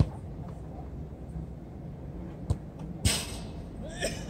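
Futsal ball being kicked: sharp thuds at the start, about two and a half seconds in and, loudest, about three seconds in, over a steady low rumble.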